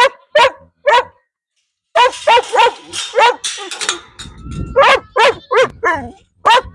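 Dogs barking excitedly at feeding time in a rapid run of short barks, with a brief pause about a second in.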